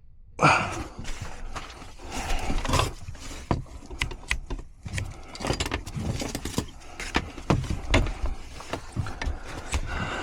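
Irregular clicks, knocks and rustling of hands and tools working a circuit breaker and its wiring into a disconnect box.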